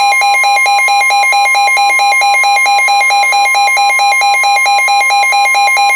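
NOAA Weather Radio warning alarm tone, a steady pitch near 1 kHz, with the weather radio receiver's own alert siren sounding loudly over it as a fast, even two-tone warble.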